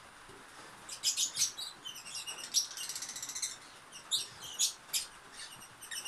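Lovebirds chirping: a run of high, quick chirps beginning about a second in, densest around the middle, with a few more near the end.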